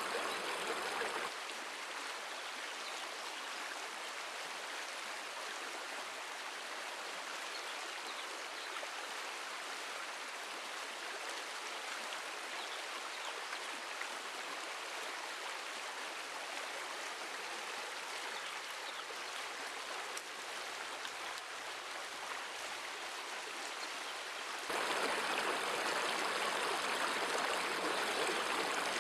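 Shallow stream running over rocks: a steady rush of water that drops to a quieter, thinner hiss about a second in and comes back louder near the end.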